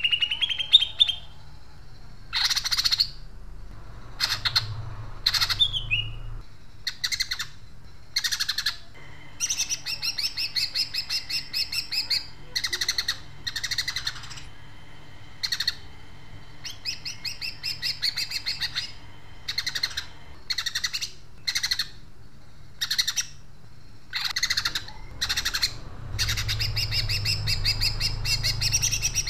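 Cucak ijo (green leafbird) singing loudly in its cage: short separate calls broken up by long, fast rattling runs of repeated notes, the trained 'crecetan gereja' chatter that mimics tree sparrows. The longest rattling run starts about three-quarters of the way in.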